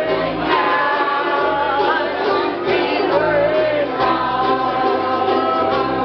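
Ukulele band playing live: several voices singing together over strummed ukuleles and an upright bass walking through low notes.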